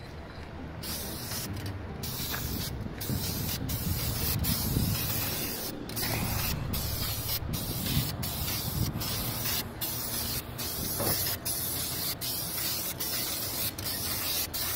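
Aerosol spray can (Dupli-Color) hissing as black paint is sprayed onto a plastic wheel-well liner, in long passes broken by many short pauses, over a low rumble.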